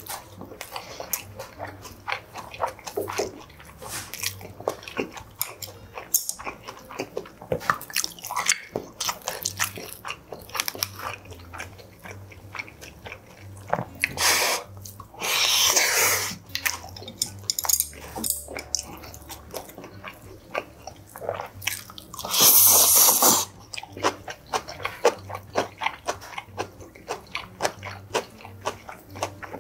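Close-miked eating of rice and seasoned spring-greens side dishes: steady chewing and biting with many quick clicks and smacks. Twice, about halfway through and again about three-quarters through, a louder hissing sound lasts a second or two.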